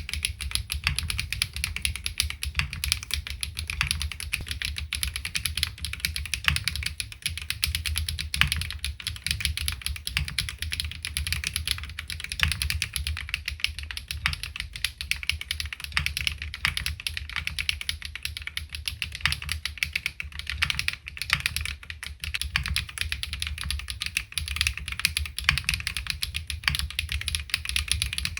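Continuous fast typing on a LINWORKS ORCA65 65% custom mechanical keyboard: HMX Duck Duck linear switches on a PC plate, bottom-mount, no foam. A dense, even stream of keystroke clacks with no pauses.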